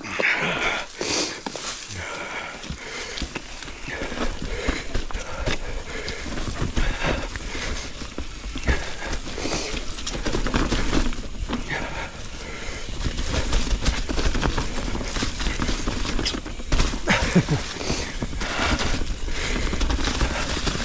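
Mountain bike riding fast down a rocky trail covered in fallen leaves: tyres rolling and crunching through the leaf litter, with constant clattering and knocking as the bike rattles over rocks and roots, over a low rumble of wind on the camera microphone.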